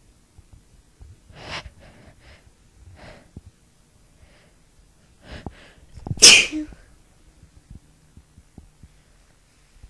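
A woman's sneeze: a few short, sharp breaths as it builds, then one loud sneeze a little after six seconds in.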